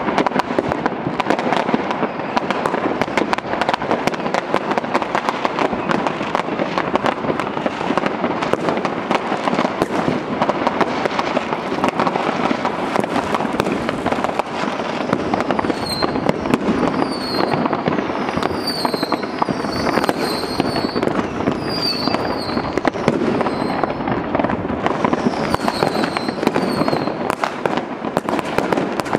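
Many fireworks going off at once at varying distances: a dense, continuous stream of bangs, pops and crackles. From about halfway through until near the end, short high whistles from whistling fireworks sound over the bangs.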